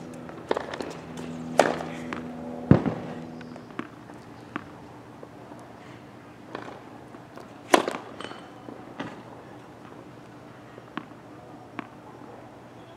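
Tennis balls struck with a racket and bouncing on a hard court: a string of sharp pops a second or two apart, two of them much louder than the rest, thinning to fainter pops near the end.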